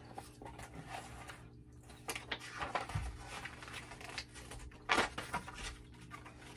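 Paper pages of a picture book rustling as they are handled and turned, with a short, sharp page flap about five seconds in, over a steady low hum.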